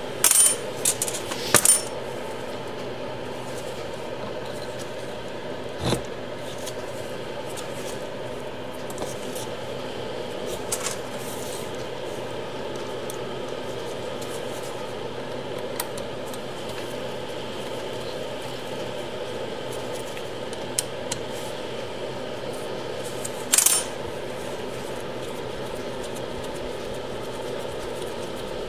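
Sharp metallic clinks of steel parts being handled on a workbench as a small electric motor with a steel shaft coupling is fitted onto a gear reducer's shaft. There is a quick cluster of clinks in the first two seconds, then single clinks now and then, over a steady background hum.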